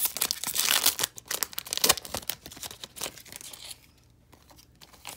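Foil wrapper of a football trading-card pack being torn open and crinkled by hand: a dense crackling rustle that dies down a little over three and a half seconds in.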